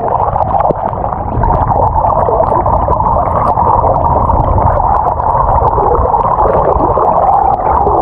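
Steady, muffled rushing and gurgling of water picked up by a camera held under the surface beside a pedal-drive kayak's hull as it is pedalled along.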